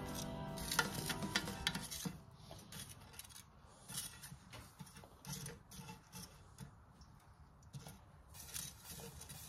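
Metal grill tongs clicking and charcoal briquettes clinking as they are set one at a time on a cast-iron Dutch oven lid, a scattered run of light taps. Background music fades out about two seconds in.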